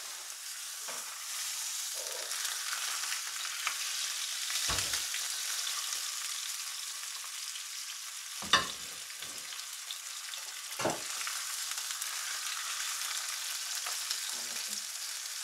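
Tied venison roast searing in olive oil in a very hot frying pan: a steady sizzle, broken by a few short knocks, the sharpest about eight and a half seconds in.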